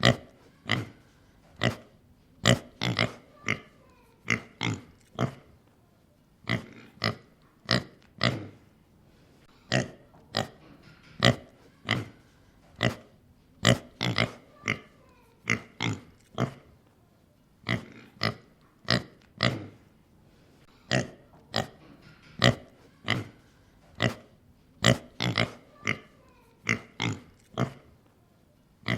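Domestic pig grunting and oinking in a long series of short, separate grunts, about one or two a second, with brief pauses between.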